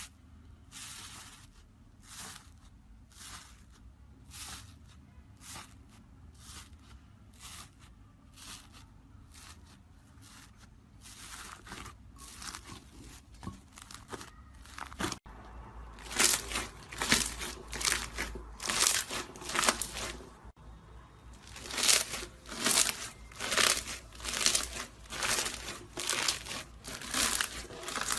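Slime being pressed and stretched by hand, giving a regular series of crackling, sticky pops about once or twice a second. The pops grow much louder about halfway through.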